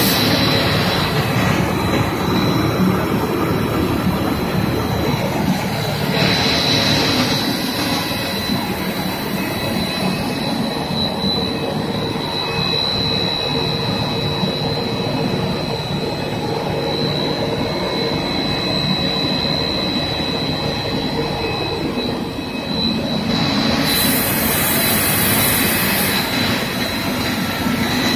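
DZ70 twin-screw snack extruder line running while it extrudes product: a loud, steady machine noise with a steady high whine. A rush of hiss swells briefly about six seconds in and again near the end.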